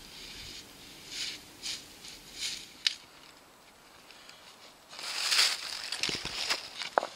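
Dry leaf litter rustling and soil scraping as a half-buried stone is dug out by hand and levered with a stick, with a few sharp knocks. The loudest rustling comes about five seconds in.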